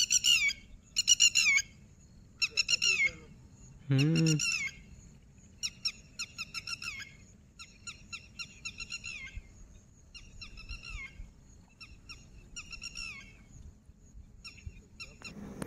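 A bird calling over and over in quick runs of short, harsh notes, each dropping in pitch, with a short lower-pitched call about four seconds in.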